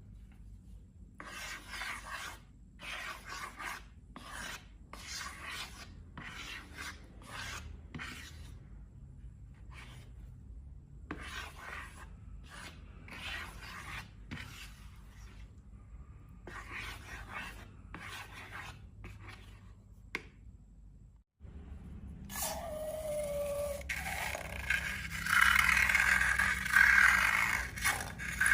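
Repeated short rubbing and scraping strokes, often about a second apart. After a break about three-quarters of the way in, the scraping turns louder and continuous, with a brief falling squeak.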